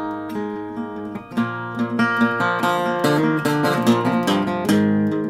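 Cutaway acoustic guitar playing picked chords, with a change to a new chord a little over a second in.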